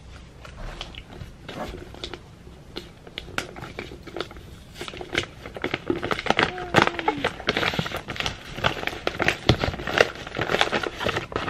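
Wrapping paper crinkling and tearing as a gift-wrapped box is unwrapped: a run of crackles and rustles that grows busier about halfway through.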